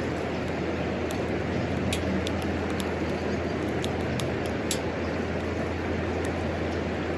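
Wood fire burning in a homemade wood stove: irregular sharp crackles and pops, about a dozen, over a steady rushing noise.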